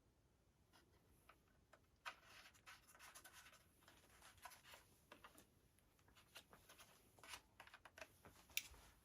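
Faint scratching and rustling with scattered small clicks as parts and packaging are handled. A sharper click comes about two seconds in and another near the end.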